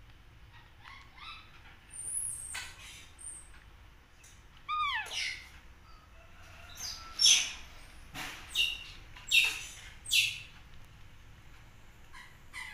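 A baby macaque making high squeaks and chirps while it feeds from a milk bottle. There is one falling squeal about five seconds in, then a run of short, sharp squeaks in the second half.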